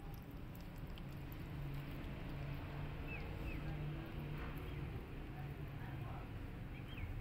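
Kitten eating wet cat food from a plate, with faint small clicks of chewing over a steady low hum. A few short high chirps come about three seconds in and again near the end.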